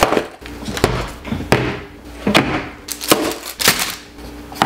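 Takeout food containers (foam clamshells, plastic trays and foil-wrapped packages) being set down one after another on a wooden table: a series of knocks and clatters, roughly one every second or less.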